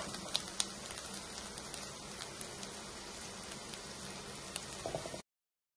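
Faint, steady sizzle of grated coconut, shallots and dried red chillies in a hot kadai that has just been taken off the flame, with scattered small crackles. It cuts off abruptly about five seconds in.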